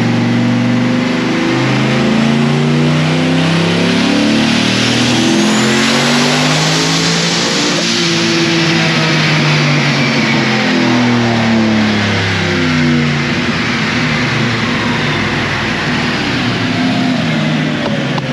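Turbocharged 4.8 L V8 of a 2005 Chevrolet Silverado with a single 88 mm turbo, loud under a full-throttle dyno pull, with a high turbo whine that climbs over the first few seconds and then falls slowly as the engine winds down. On this pull the engine is running rich and down on power.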